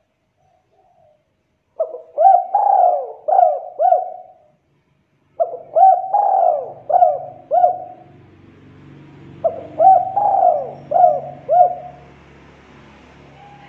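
Spotted dove (tekukur) cooing: three phrases of about five coos each, a second or so apart.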